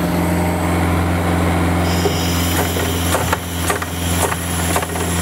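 Diesel Kubota engine of a truck-mounted sealcoating unit running steadily. About two seconds in, the material pump kicks in, adding a hiss and regular clicks about twice a second as it cycles to charge the spray system through the open recirculation valve.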